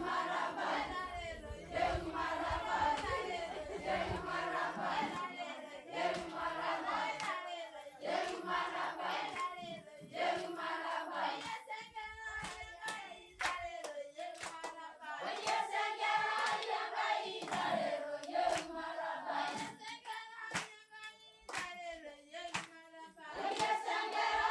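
A group of voices singing together to rhythmic hand clapping.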